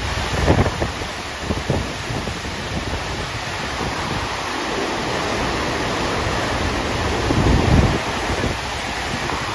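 FlowRider surf simulator running: a steady rush of pumped water sheeting across the riding surface, with low gusts of wind on the microphone, the strongest near the end.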